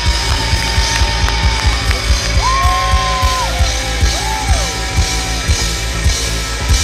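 Live rock band playing loudly through a PA: guitars, bass and a drum kit with a steady kick drum, and a lead line of held notes that slide up and down between them.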